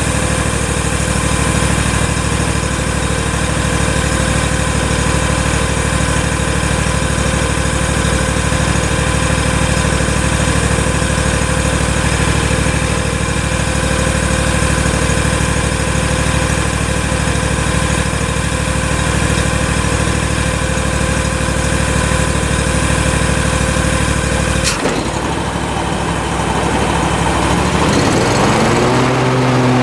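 Stand-on lawn mower engine running steadily under load. About 25 seconds in there is a sudden click and the sound changes, and near the end the engine pitch rises and settles at a new steady speed.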